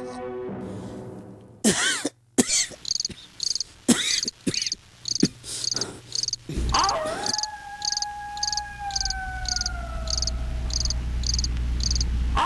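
Crickets chirping in a steady night chorus, about three chirps a second. Several sharp knocks come in the first half. From about the middle on there is a low hum with a long tone that slides slowly downward.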